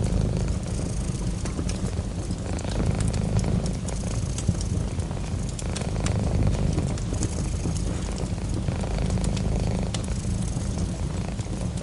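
Cat purring close up: a low rumble that swells and eases every couple of seconds. Scattered crackles of a wood fire sound over it.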